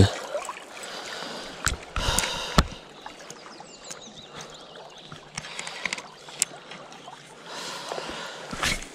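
Gentle lapping and flowing of river water. Over it come scattered clicks, knocks and fabric rustle from an angler handling a spinning rod and reel close by.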